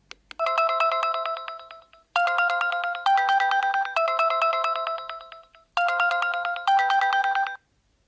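Energizer Energy E241S mobile phone playing a ringtone through its loudspeaker: a short synthesized melody, its phrase played through twice. Two brief clicks come just before it begins.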